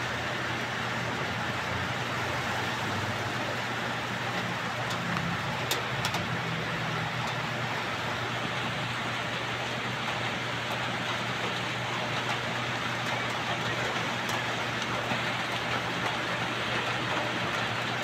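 Steady rain falling on roofs and foliage, an even hiss with a low steady hum beneath it. Two faint sharp ticks come about six seconds in.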